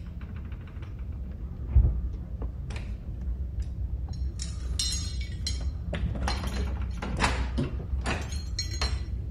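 Clicks and a thump from the iron lock fittings of an 18th-century wrought-iron safe as a hidden stud is worked, then a ring of keys jingling and metal clinking in bursts as a key is put into the concealed keyhole and turned.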